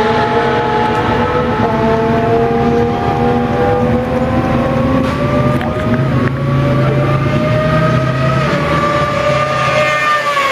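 Racing engines running hard at high revs, several engine notes climbing slowly in pitch for most of the time, then one drops sharply near the end as a vehicle goes by.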